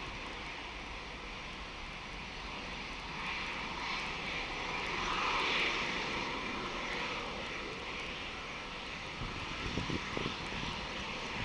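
Boeing 747-200 freighter's four jet engines at takeoff power, a steady distant rush of engine noise as it lifts off and climbs away, swelling about halfway through. A few low thumps near the end.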